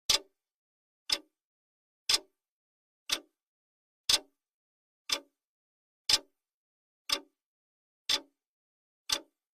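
Clock ticking sound effect of a countdown timer: one sharp tick every second, alternating slightly louder and softer like a tick-tock.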